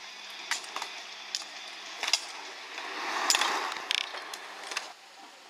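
Inline skate wheels rolling on asphalt, swelling as a slalom skater passes close about three seconds in. Scattered sharp clacks run throughout.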